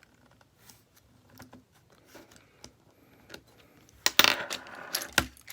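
Small hard parts of a disassembled smartphone clinking and clattering on a work surface in a short burst about four seconds in, after a few faint handling clicks.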